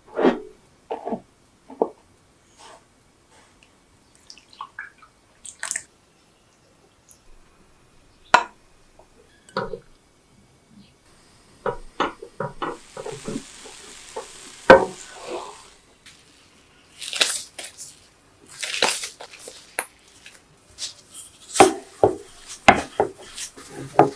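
Kitchen handling sounds: scattered taps and clinks of a bowl and utensils, then a silicone spatula stirring and scraping thick batter in a pan over a faint steady hiss, then quicker, louder clicks and soft sticky handling noises near the end.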